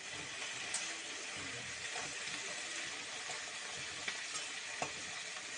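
Kharkol leaves, green chillies, onion and garlic sizzling steadily as they fry in oil in a kadai, with a few light clicks of stirring near the end.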